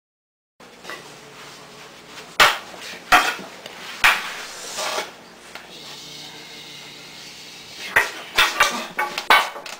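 Homemade prop swords striking each other in a mock sword fight: a few sharp clacks about two to four seconds in, then a quick flurry of hits near the end, over low room noise in a small room.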